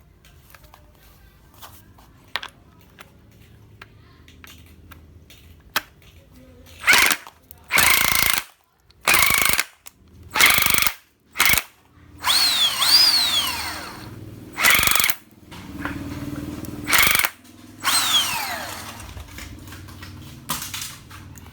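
Snap-on 18V cordless impact wrench run in about eight short trigger bursts, the first about seven seconds in. After some bursts its motor whine falls away as it coasts down. A few light handling clicks come before the first burst.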